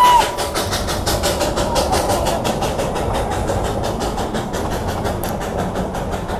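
Darjeeling Himalayan Railway steam train running slowly with a fast, steady rhythmic beat. Its whistle blast cuts off with a slight fall in pitch as the sound begins, and is the loudest part.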